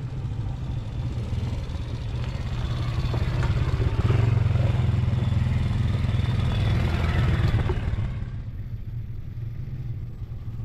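ATV engine running under throttle, getting louder from about three seconds in and easing back off near the end.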